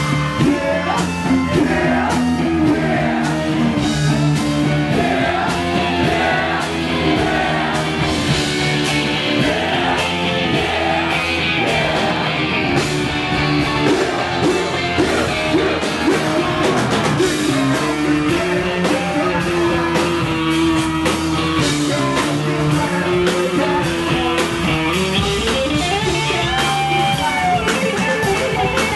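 Live funk band music: drum kit, bass and electric guitar playing a steady groove, with a lead vocal sung into a microphone over the PA.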